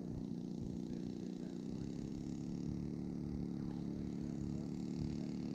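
Distant Stinger 26cc two-stroke gas engine of a radio-controlled Beechcraft Staggerwing model running steadily at low throttle, a low drone that grows a little louder near the end.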